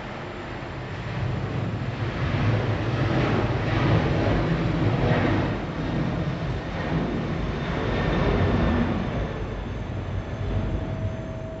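Boeing 737-800's CFM56-7B jet engines at takeoff thrust during the takeoff roll: a broad rushing jet noise that grows louder as the aircraft passes and eases off near the end as it lifts off.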